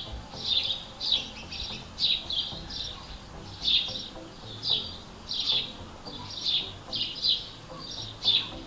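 Small birds chirping: short, high, downward-sliding chirps, about two a second.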